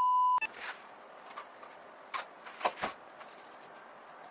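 A steady test-card beep that cuts off suddenly just under half a second in. Then a quiet small room with a few short soft rustles and ticks from handling clothes.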